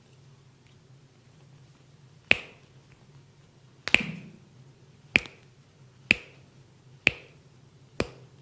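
Six sharp snaps from the masseur's hands, starting about two seconds in and coming roughly once a second, each loud and short with a brief ring-off.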